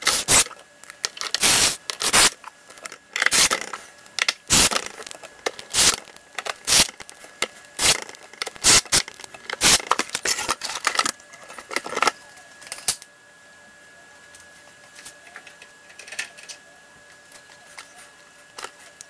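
Small turntable parts and hand tools being handled during reassembly: a run of sharp clicks, knocks and scrapes of metal and plastic parts, stopping about thirteen seconds in and leaving a faint room tone.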